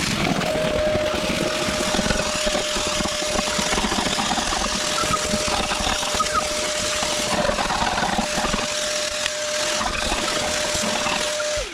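Vacuum cleaner running steadily with a constant whine, sucking up scraped rust and debris from a truck's floor pan; it is switched off near the end, the whine dropping away.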